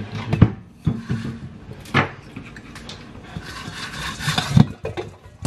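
Kitchen food preparation: a few sharp knocks of utensils and containers on a wooden surface, with rubbing and scraping in between.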